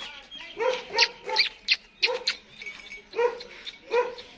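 A dog barking in quick runs of short, sharp barks, two or three a second, pausing briefly near the middle.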